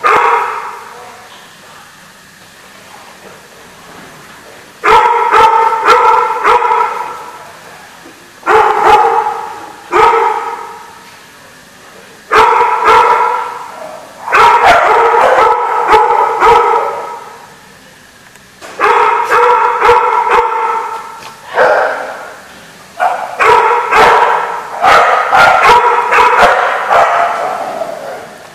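Dogs barking in repeated bouts of quick barks during rough play, with a quieter stretch for the first few seconds.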